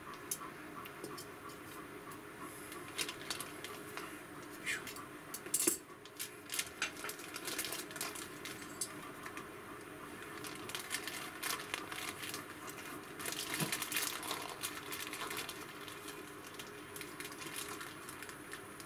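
Zip-top plastic bag rustling and crinkling as pork is packed into a soy-sauce marinade and the bag is pressed and sealed, with scattered light clicks and clinks of metal tongs.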